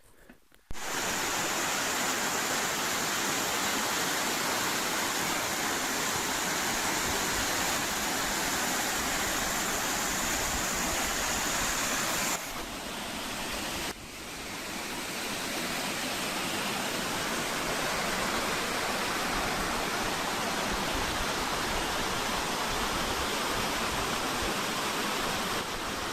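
Waterfall: a steady rush of falling water that starts under a second in, briefly drops and changes in tone about twelve seconds in, and comes back about fourteen seconds in.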